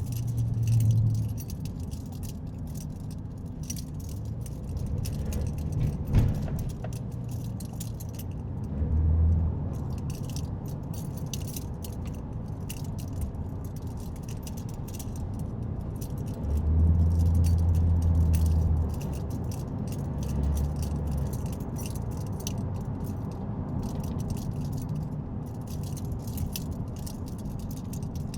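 Inside a moving car's cabin: steady low road rumble that swells heavier a few times, longest for about two seconds midway, with constant light rattling and clicking like keys jangling, and one sharp click about six seconds in.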